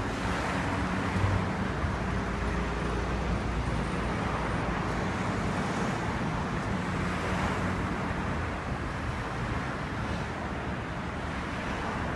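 Steady road traffic noise, with the low hum of passing car engines rising and fading.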